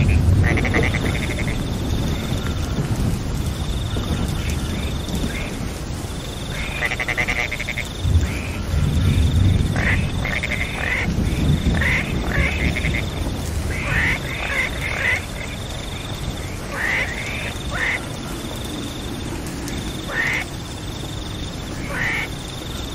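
Frogs croaking in rapid pulsed calls over steady rain, with a high trill that comes in regular bursts of about a second and a low rumble underneath.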